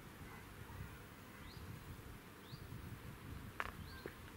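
Outdoor ambience at low level: a few short, rising bird chirps over an uneven low rumble, with one sharp click a little after three and a half seconds.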